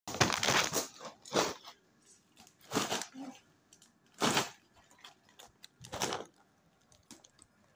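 Crinkly plastic snack packets being handled: five short crackling rustles about one and a half seconds apart, with faint crackle between them.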